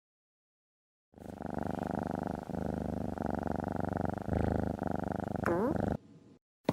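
Domestic cat purring close up, a steady rapid rumble that starts about a second in, with a brief rising note just before it cuts off.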